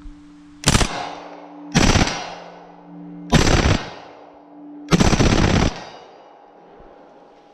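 Reising Model 50 .45 ACP submachine gun firing four short bursts of automatic fire about a second or so apart, each under a second long and the last one the longest. The shots echo and fade after each burst.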